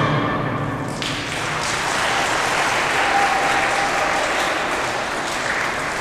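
A children's choir's last sung note dies away in the first second, then an audience applauds steadily.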